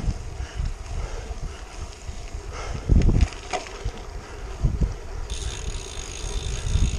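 Wind buffeting the microphone of a handlebar-mounted camera as a road bike rolls over a wet road, with heavy thumps about three seconds in and again near five seconds. About five seconds in, a steady high whir starts and carries on.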